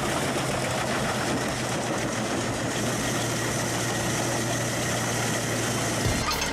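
Large industrial log chipper running steadily, its engine a constant low hum under a dense even noise; the sound changes about six seconds in.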